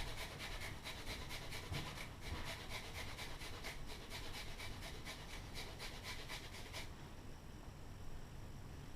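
Fresh ginger being rubbed back and forth on a hand grater: a quiet, rhythmic rasping, several strokes a second, with less hiss near the end.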